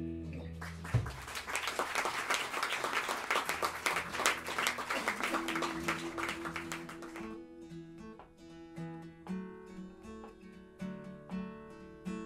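Applause from a small audience for about six seconds after a chord fades away, then an acoustic guitar picking single notes over a held bass note.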